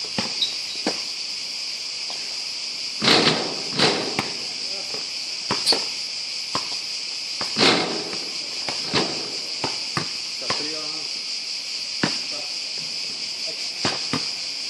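A basketball bouncing on an outdoor hard court, about ten scattered thuds with the loudest around three and eight seconds in, over a steady high-pitched drone of cicadas in the surrounding trees. A short voice is heard around the middle.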